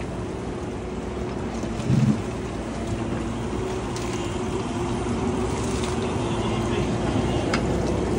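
Mini digger's diesel engine running steadily as it digs out the blocked drain pipe, with a few faint clicks and a short louder low sound about two seconds in.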